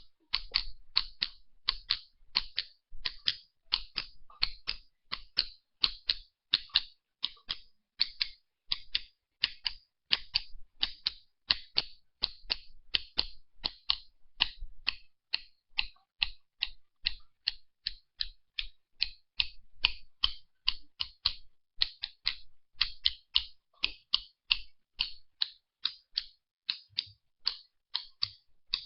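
A long run of sharp, high-pitched ticks, about two to three a second and slightly uneven in spacing.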